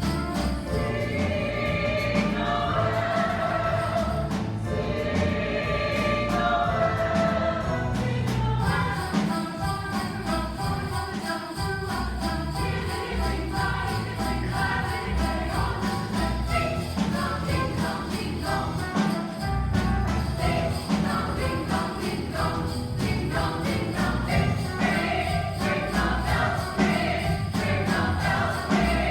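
A choir singing a Christmas song, with jingle bells shaken in time.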